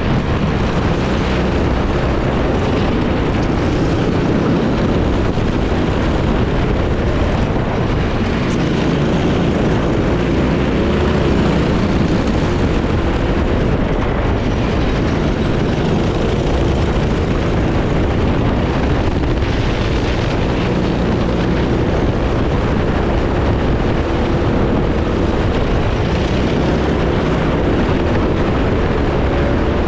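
Racing kart engine running hard on track, heard from the onboard camera; its pitch rises and falls with the throttle through the corners and climbs again near the end.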